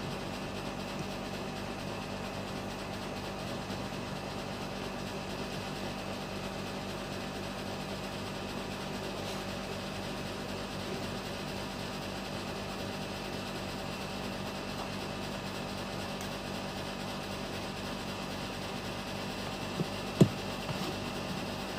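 Steady machine hum with a few faint held tones. Near the end, a sharp tap as an electrolytic capacitor is set down on the cutting mat.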